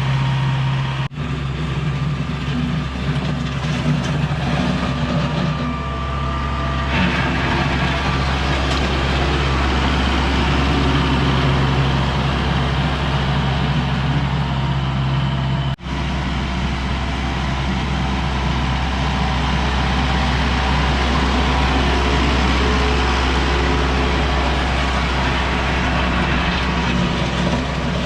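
Heavy equipment engine running steadily at a constant pitch, with two brief dropouts where the sound cuts out for an instant, about a second in and about halfway through.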